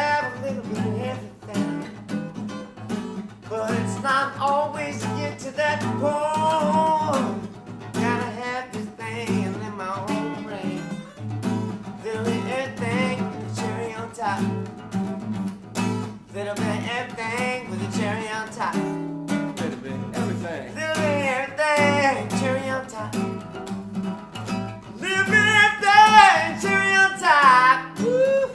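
Live song: a guitar played steadily under sung vocal phrases that waver in pitch, the singing growing loudest near the end.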